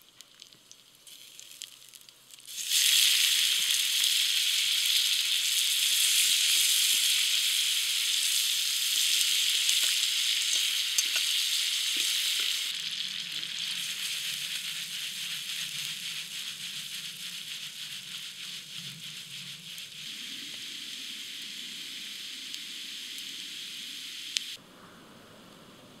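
Bacon fat sizzling in a skillet over a campfire as tagliatelle is added and tossed. The sizzle starts about three seconds in, is loudest for the next ten seconds, then eases, and cuts off suddenly near the end.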